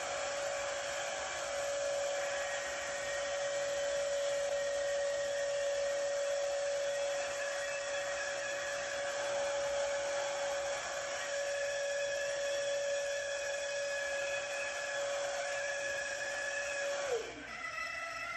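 Handheld paddle mixer drill running steadily in a bucket of thinset mortar, with a shop vacuum drawing air through the dust collar, giving a steady whine. About 17 seconds in, the motor winds down with a falling whine, and music starts near the end.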